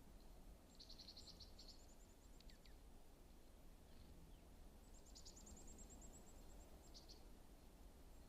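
A faint songbird singing two short, high, rapid trills a few seconds apart, with a few thin falling notes after the first, over a low steady rumble.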